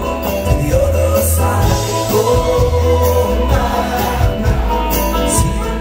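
Live country-rock band playing with singing: acoustic and electric guitars, fiddle, drums and backing vocals at a steady beat.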